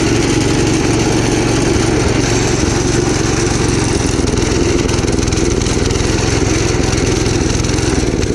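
Gravely Commercial 12 garden tractor's engine running steadily after a restart, its fuel valve at the carburettor just opened; the engine had stalled and was running rough moments earlier.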